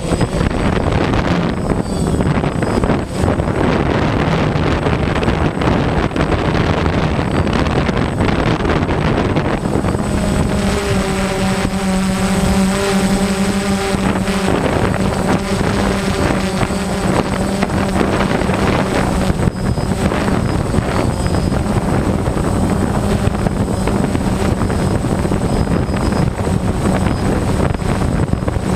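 Strong wind blowing hard, a loud continuous rush with a steady low hum in it; a few seconds past the third of the way, a higher howling tone with overtones rises out of the rush for a few seconds, then falls back.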